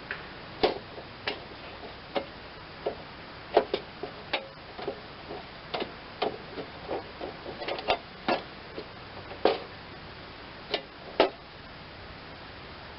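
Irregular sharp clicks and clinks of metal mower-deck parts and hardware being handled and fitted, a few in quick succession, then pauses.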